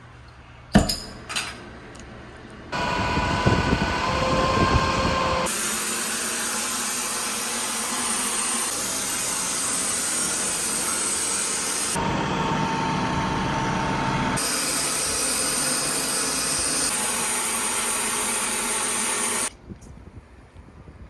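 Power tools running at work in a series of short, abruptly cut clips, after a few sharp clicks near the start.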